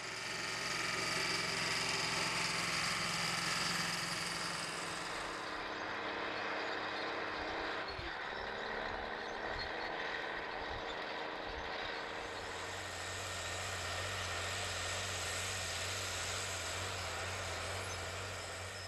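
Diesel engines of large four-wheel-drive and MFWD farm tractors running under heavy load while pulling tillage implements across a field, in power hop. Heard as a run of separate clips, the engine sound changes abruptly about five and a half seconds in and again about twelve seconds in.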